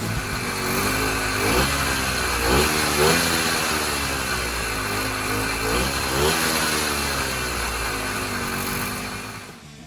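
49cc two-stroke motorized-bicycle kit engine running, its throttle blipped several times so the pitch rises and falls back. It dies down near the end.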